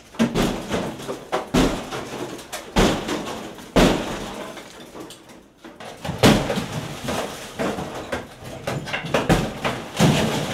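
Demolition debris being torn down from a ceiling and falling: a run of loud, irregular crashes and clatters, about seven hard impacts with rattling rubble in between.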